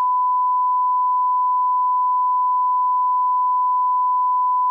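A broadcast line-up reference tone at 1 kHz, played with the colour bars: one continuous pure beep at constant level.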